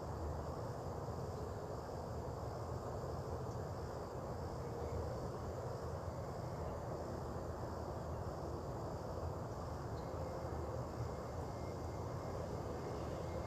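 Outdoor morning ambience: a steady low rumble of distant traffic, with insects chirping in a faint, evenly pulsing high band.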